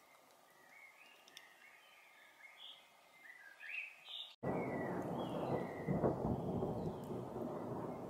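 Small songbird giving short, high chirps. About halfway through the sound cuts out abruptly, and a loud, low rumble of thunder takes over, with faint chirps continuing above it.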